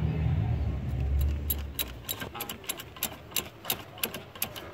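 Light metallic clicks and clinks, about three or four a second from about two seconds in, as the A/C expansion valve and its line fittings are handled and fitted back in place. A low rumble fills the first two seconds.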